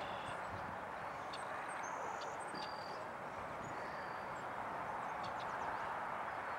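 Steady outdoor background noise with a few short, high bird chirps between about two and four seconds in.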